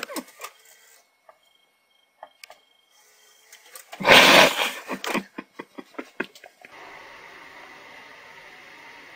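A cat pawing and scratching at a dark fabric bag: light scuffs and taps, then a loud rustling scrape about four seconds in followed by a run of quick taps. A steady hiss takes over near the end.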